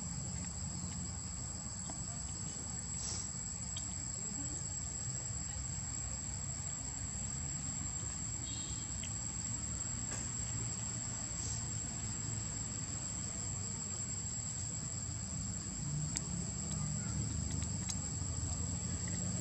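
Insects droning with a steady high-pitched tone over a low background rumble.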